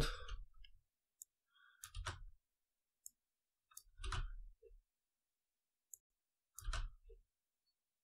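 Scattered faint clicks of computer keyboard keys and a mouse during text editing, with three slightly louder knocks about two seconds apart.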